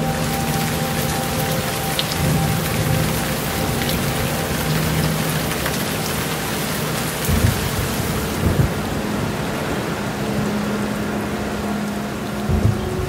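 Steady rain hissing, with a low droning ambient music track underneath. Short low rumbles break through about halfway and again near the end.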